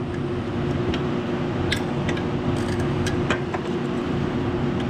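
A wrench turning a nut welded onto a broken bolt, giving scattered sharp metal clicks as the bolt is backed out, over a steady mechanical hum.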